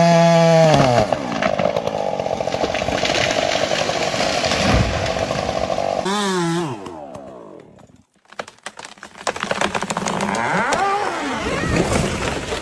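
Chainsaw running at high revs with a steady pitch, dropping in pitch at the start and again about six seconds in. The sound falls away almost to nothing around eight seconds, then a chainsaw runs again with uneven revs.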